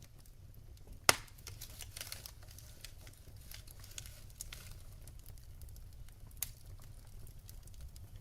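Wood fire crackling in a fireplace: scattered pops and snaps over a low steady rumble of the flames, with one sharp loud crack about a second in and a smaller one near the end.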